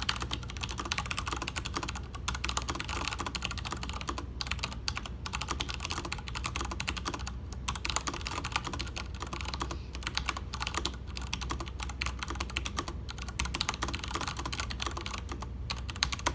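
Continuous typing on an older Das Keyboard mechanical keyboard with Cherry MX Brown switches, which are tactile and non-clicky: a dense stream of key clacks with a few short pauses between bursts.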